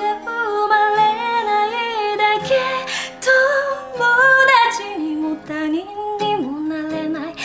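A woman singing a song in Japanese to her own strummed acoustic guitar, a black Gibson played with a capo.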